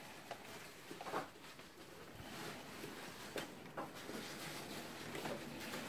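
Quiet shuffling and rustling of children's padded winter coats and footsteps in a hallway, with a few soft clicks and knocks.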